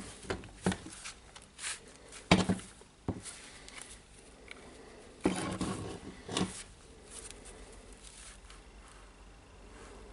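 Plastic housing halves of a Dewalt DCD995 drill being handled and pressed together. Irregular clicks and knocks, the loudest about two and a half and five and a half seconds in, then fainter handling noise.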